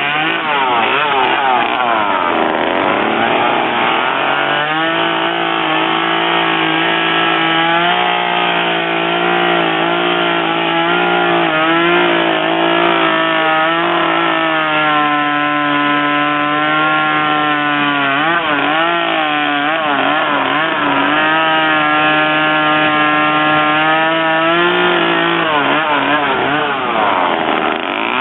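Chainsaw running at high revs while carving a wooden bear sculpture, its pitch dipping and rising again and again as the bar bites into the wood and is eased off.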